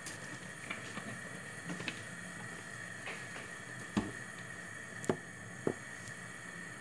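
Gas stove burner running under a wok of heating oil: a steady hiss and hum with a faint high whine, broken by a handful of soft clicks and knocks, the loudest about four and five seconds in.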